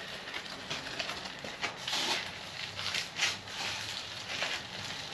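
Irregular light knocks, scuffs and rustles of an electric unicycle being handled and moved, with footsteps shuffling on a leaf-strewn floor.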